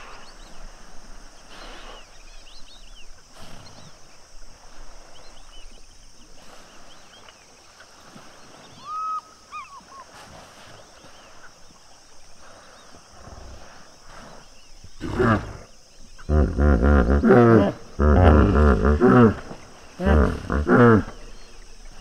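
Common hippopotamus calling: after a quiet stretch, a loud series of deep, rapid honking grunts starts about fifteen seconds in. It comes in bouts, strongest over the next few seconds, with shorter bouts near the end.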